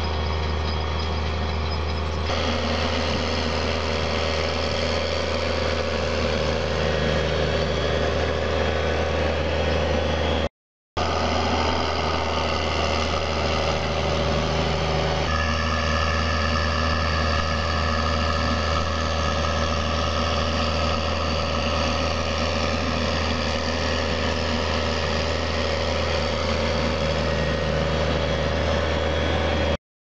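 New Holland T7040 tractor's six-cylinder diesel engine running steadily under load while pulling a seed drill, a constant low drone. It cuts out for about half a second a third of the way in.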